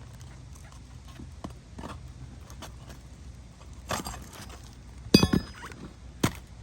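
Roofing nails being pried out of asphalt ridge cap shingles with a metal tool: scattered light clicks and scrapes, then a sharp metallic clink with a brief ring about five seconds in and one more click near the end.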